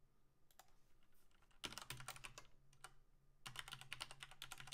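Faint computer keyboard typing in two quick runs of key clicks, one about one and a half seconds in and a longer one from about three and a half seconds in, as a terminal command is typed.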